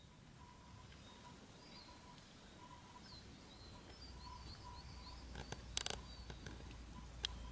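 Faint outdoor ambience: small birds chirping in the distance over a faint repeated note, with a low rumble growing toward the end. A few sharp clicks come about six seconds in, and one more near the end.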